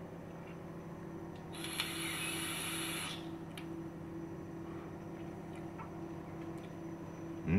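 A draw on a Wotofo Profile mesh-coil tank firing at 70 watts: a hiss of air pulled through the tank for about a second and a half, starting about a second and a half in. A low steady hum runs underneath.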